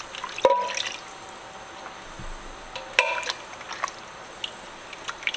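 Water poured from a tin can into a pot of chili sauce, the can having just been rinsed of crushed tomatoes. Two sharp metallic clinks with a brief ring, about half a second in and about three seconds in, followed by light spoon-stirring clicks.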